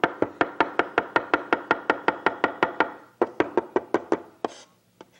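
Knife chopping fresh dill on a wooden cutting board: a fast, even run of ringing knocks, about seven a second. It pauses briefly about three seconds in, then goes on in a shorter second run.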